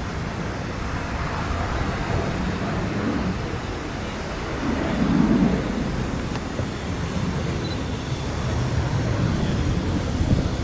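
Miniature steam locomotive moving off, under a steady rumble of wind on the microphone that swells louder about five seconds in.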